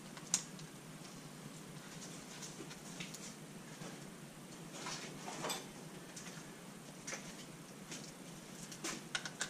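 Sparse light clicks and small knocks of tools and parts being handled on a workbench over a quiet room hiss. There is a sharp click about half a second in, a few knocks around the middle and a few more near the end.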